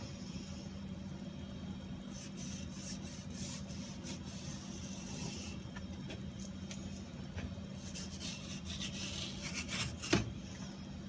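Knife strokes rasping and scraping through raw bluefin tuna, in two spells of strokes, with a single knock about ten seconds in. A steady low hum runs underneath.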